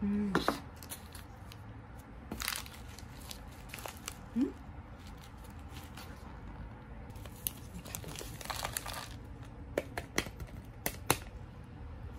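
Instant cup udon being unpacked by hand: plastic seasoning packets and the cup's lid torn open and crinkled in scattered short bursts, with sharp clicks of packaging being handled.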